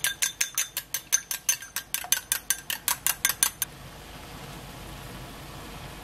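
A raw egg being beaten in a glass bowl: quick, even clinks of a utensil against the glass, about seven a second. The clinking stops a little past halfway, leaving the soft steady bubbling of a pot of broth at the boil.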